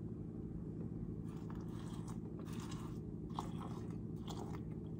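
Milk being poured from a plastic gallon jug into a bowl of instant oatmeal, faint and uneven, over a steady low hum.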